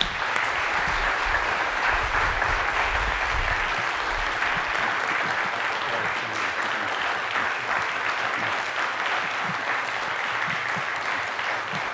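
Audience applauding, a steady dense patter of many hands clapping that eases slightly near the end.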